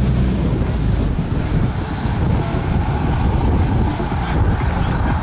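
Car engines running at low revs close by, a steady rumble, mixed with wind buffeting the microphone.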